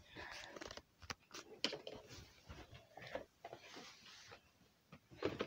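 Faint scattered clicks and light knocks, with near-silent gaps between them, as things are handled in a small room.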